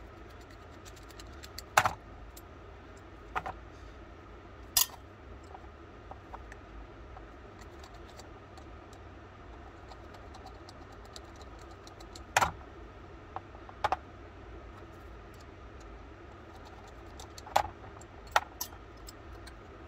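Sharp metal clicks and clinks from the small steel parts of an antique percussion pistol's lock being taken apart with a screwdriver and by hand: about seven separate clicks at uneven intervals.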